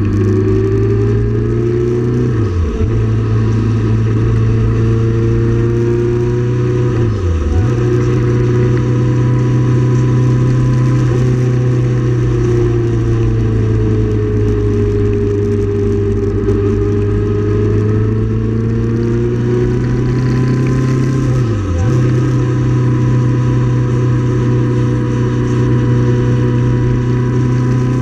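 Motorcycle engine running steadily at cruising revs in a high gear. The engine note dips briefly three times: about three seconds in, about seven seconds in, and again near twenty-two seconds.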